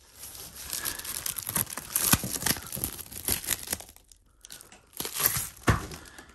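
Clear plastic stretch wrap around a large framed picture crinkling and crackling as the frame is handled and tilted, in two stretches with a short lull about four seconds in.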